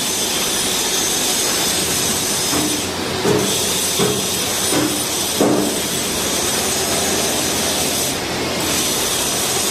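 Steady factory machinery noise, with four short knocks about two thirds of a second apart partway through.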